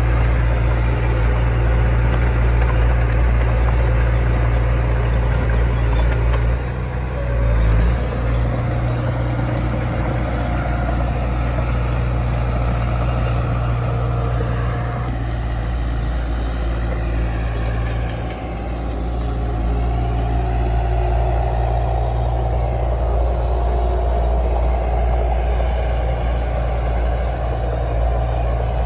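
Heavy diesel engine of earthmoving machinery running steadily with a deep hum, briefly dipping and changing note about seven seconds in and again around eighteen seconds.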